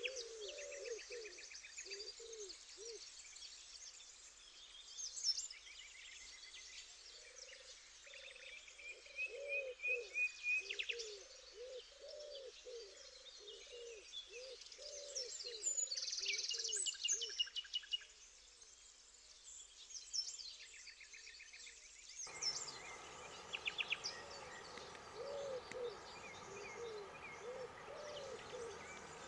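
Birdsong at dawn: a dove coos in a long run of repeated low notes, while smaller birds chirp and trill higher up. About two-thirds of the way through, the steady rush of river water comes in under the birds.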